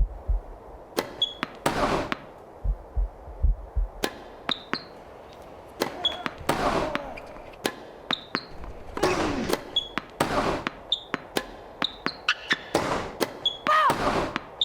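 Tennis ball being struck back and forth in a rally: a run of sharp racket-on-ball hits and ball bounces, some with a short ringing ping, coming about one to two a second and quicker near the end. Short noisy scuffs and gliding squeaks fall between the hits.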